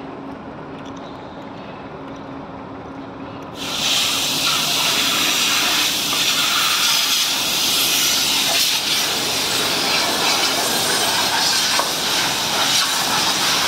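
A quieter steady hum, then a loud, steady hiss that starts abruptly about three and a half seconds in and carries on unbroken.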